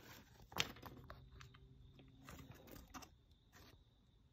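Near silence with faint handling noise: a few light, scattered clicks and taps, the sharpest a little over half a second in.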